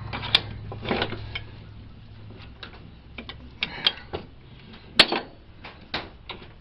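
Scattered metallic clicks and clinks of hand tools and parts being worked against a riding mower's rusted steering gear, with one sharp knock about five seconds in. A low hum fades out about two seconds in.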